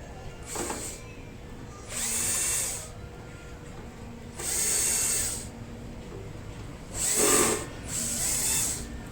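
A small power drill or driver run in five short bursts of about half a second to a second each, whirring up and winding down between them.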